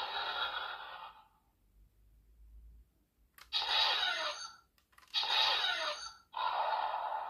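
Electronic sound effects from a Laser Raise Riser transformation toy, played through its small built-in speaker. Its music fades out about a second in. After a pause come three short bursts of effects with sweeping pitch.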